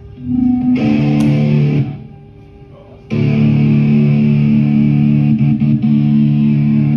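Distorted electric guitar through an amplifier. A short note, then a held chord of about a second that is cut off, then a second chord held about four seconds and stopped abruptly.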